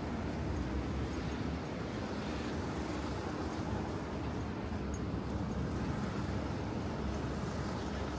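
Steady urban road-traffic rumble with no distinct single event.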